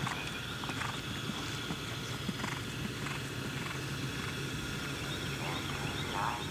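A horse's hoofbeats as it canters across grass turf, over a steady outdoor background.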